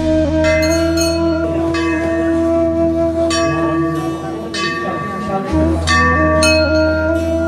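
Metal temple bells struck again and again at uneven intervals, each strike ringing on, over background music with a steady low drone.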